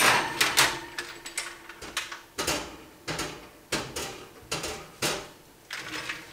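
Metal clanks and rattles from a baking sheet loaded with steel sockets and wrenches being slid into an oven and set on the oven rack: a string of sharp knocks, roughly one every half second to second.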